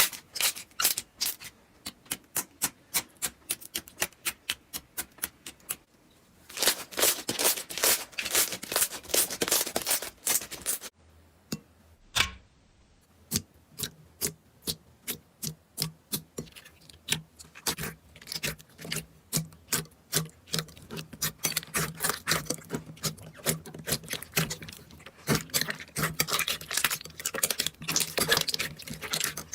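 Slime being squeezed and poked by hand, giving a run of crisp crackling clicks and pops. The clicks come about three a second at first, then crowd into dense crackling. After a short pause near the middle the crackling picks up again.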